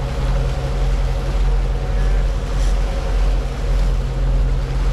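Boat engine running steadily: a low drone with a hiss over it.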